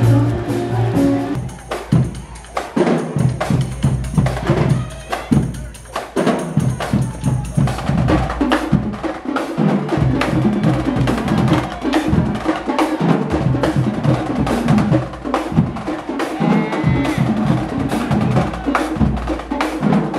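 Marching drumline of snare and bass drums playing a fast, driving rhythm, cutting in after about a second and a half of other music.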